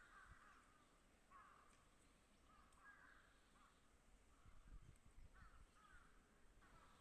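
Birds calling faintly in short, repeated bursts of rough, wavering notes, a new burst about every second.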